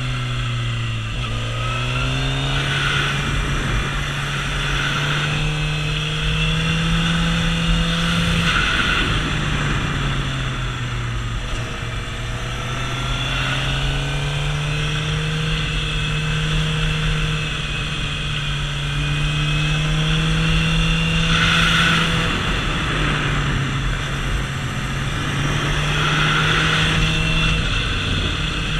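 Suzuki GSX-R750's inline-four engine under way, its note falling and rising repeatedly as the throttle is rolled off and back on through a string of bends, with wind rushing on the microphone.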